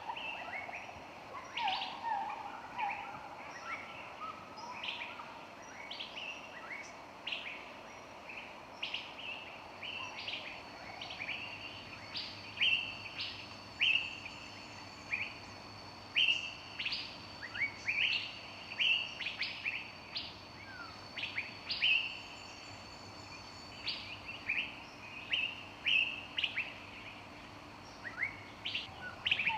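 Several songbirds chirping and singing, with short sharp calls and quick falling notes coming one after another, over a faint steady hiss.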